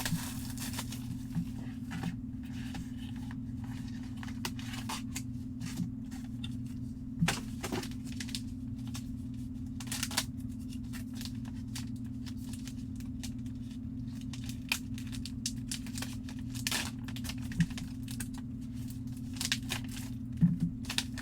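Trading-card box packaging being torn open and handled: plastic wrap tearing and crinkling, with scattered clicks and crackles over a steady low hum.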